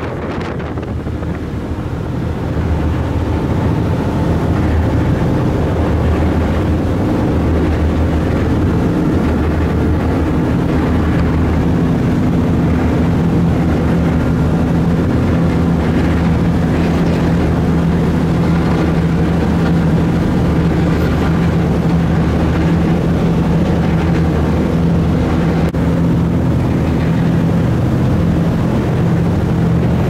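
Small ferry's engine droning steadily over the rush of water churned up by the hull and propeller, with some wind on the microphone. The drone grows louder about two to three seconds in and then holds steady.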